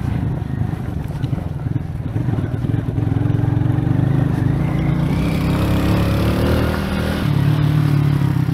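Motorcycle engine running while riding. The engine pitch climbs through the middle as it revs up, then drops back near the end.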